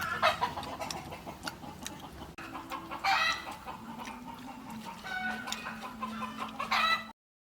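Chickens clucking, a few short calls spread out, over a low steady hum; the sound cuts off abruptly about seven seconds in.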